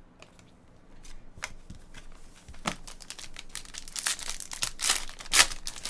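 A trading-card pack's wrapper being torn open and crinkled by hand: a run of crackles and rips that builds up, the loudest coming near the end.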